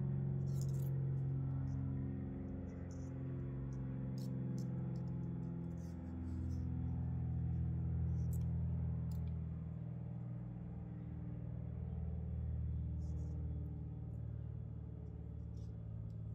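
A low, steady droning tone built of several held notes that shift in pitch every few seconds, with scattered faint ticks above it.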